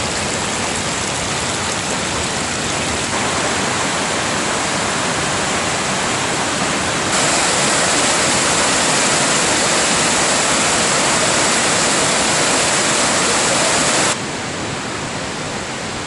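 Rushing water of a mountain stream and cascading waterfall, a steady, even rush. The level jumps abruptly a few times, and it is loudest from about seven to fourteen seconds in.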